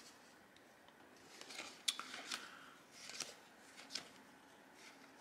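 Digimon trading cards being flipped through by hand, sliding and flicking against each other. Faint soft scrapes and a few light clicks, spread over a few seconds from about a second and a half in.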